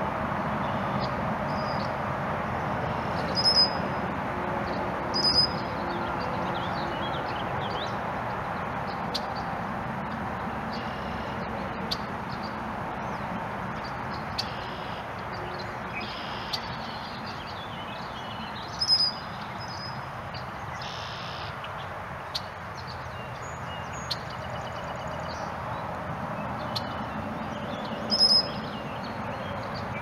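Male red-winged blackbird giving short, sharp calls, four loud ones spread apart, with fainter chirps between, over a steady background hiss.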